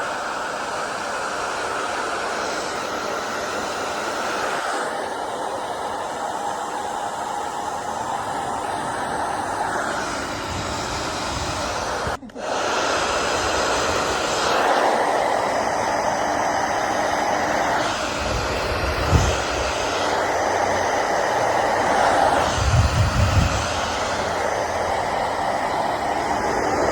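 Steady rushing noise that shifts in colour every few seconds, with a brief dropout about twelve seconds in and a few low thumps in the second half.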